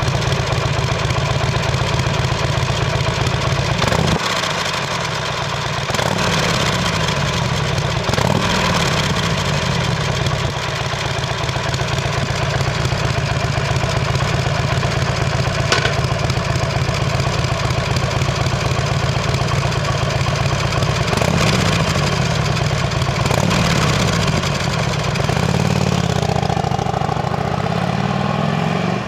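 2007 Harley-Davidson Sportster's V-twin engine heard at its stock chrome mufflers, idling with several throttle blips that rise and fall in pitch. Near the end the bike revs up and pulls away.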